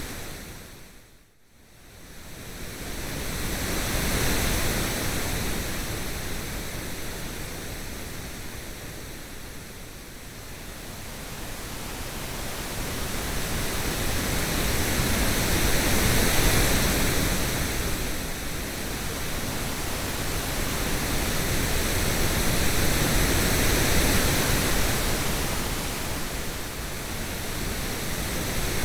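Generated coloured noise: a full, steady hiss across low and high pitches that almost cuts out about a second in, then swells and fades slowly every several seconds, like surf.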